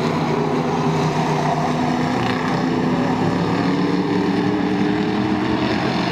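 A tightly bunched pack of hobby stock race cars running together on an oval track. Several engines sound at once, their pitches overlapping and drifting slowly up and down.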